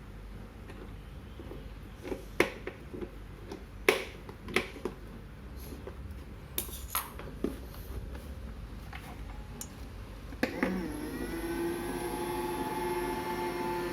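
Scattered clicks and knocks of plastic being handled, then a click and a robot vacuum cleaner's motor starting, running on as a steady hum with a held whine.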